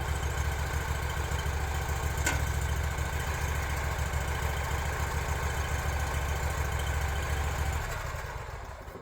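Engine idling steadily, then shut off near the end and dying away.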